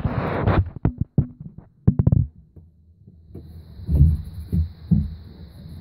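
Handling noise on a phone's microphone: a burst of rubbing at the start, a few sharp clicks around one and two seconds in, then several low thumps between four and five seconds in. A faint steady high hiss sets in about three seconds in.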